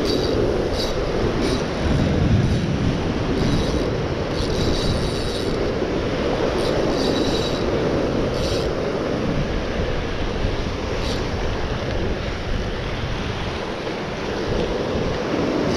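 Surf washing over lava rocks with wind buffeting the microphone, a steady rushing noise. Short high-pitched whirring bursts come and go, several in the first half and one more later, as the spinning reel's handle is cranked.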